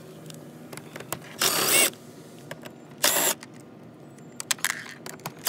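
Cordless drill with a 7 mm socket on an extension, run in two short bursts about a second and a half and three seconds in, backing out the small bolts that hold a truck door's trim bezel. A third run starts at the very end, with light clicks and taps of the tool and bolts in between.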